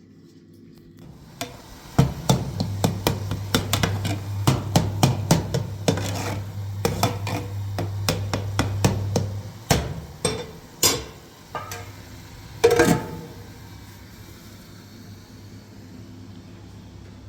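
A rapid run of knocks and clatter over a steady low hum for several seconds, then a few separate louder knocks.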